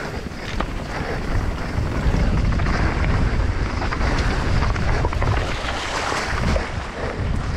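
Mountain bike rolling fast down rocky singletrack: the steady rumble and rattle of tyres and bike over dirt and stones, with wind buffeting the microphone and a few sharp knocks from rocks hitting the bike.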